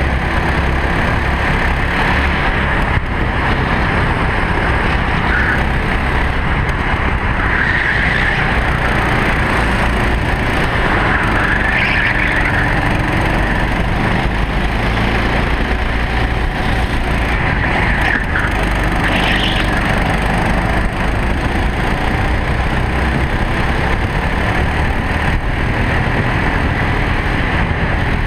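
Racing kart engine running hard, heard from the driver's seat, its pitch rising and falling with the throttle through the corners. It is continuous and loud throughout.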